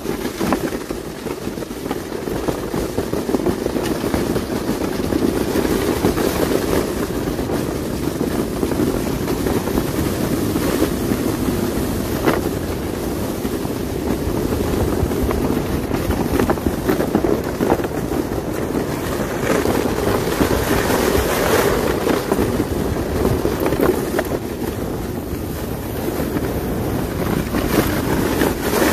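Steady rumble of a vehicle driving along a snow-covered road: tyre and wind noise with no clear engine note, plus a few brief knocks.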